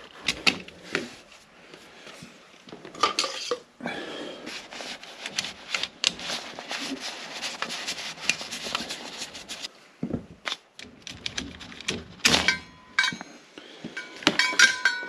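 Screwdriver and metal parts clicking, knocking and clinking as a Honeywell mid-position motorised valve head is unscrewed and lifted off its brass valve body, with a few ringing metallic clinks near the end.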